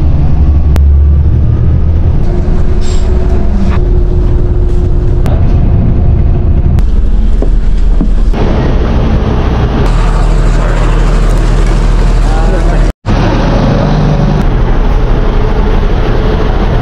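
Bus engine and road noise heard from inside a moving bus: a steady, heavy low rumble, with voices in the background. The sound drops out briefly about 13 seconds in.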